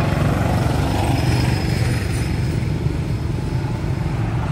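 Small motorcycle engine running steadily with a fast, low putter.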